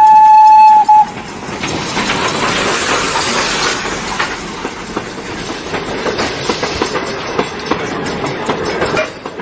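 Steam locomotive whistle holding one loud steady note that cuts off about a second in. After it comes the train's running noise: a steady hiss and rumble broken by irregular clanks and clicks.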